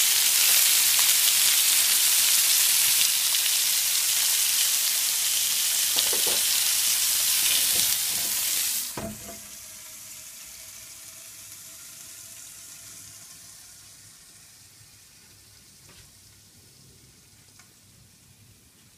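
Pork steaks and bacon sizzling on a hot smoker grill grate, a loud steady hiss. About nine seconds in there is a knock, and after it the sizzling is much quieter and keeps fading.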